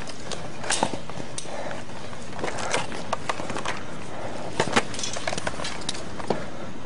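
Handling noise from a handheld camera: irregular clicks and knocks over a steady hiss, with the loudest pair of knocks about four and a half seconds in.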